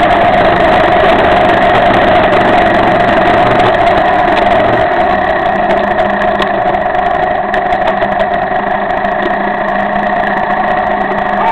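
Cagiva Elefant 600 motorcycle engine running steadily while riding, heard from a camera mounted on the bike, with a continuous rush of wind and road noise over it.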